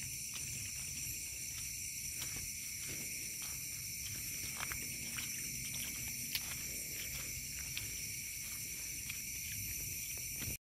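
Night insects calling together, a steady high-pitched chorus of several trills held at once, over a low rumble with a few faint clicks.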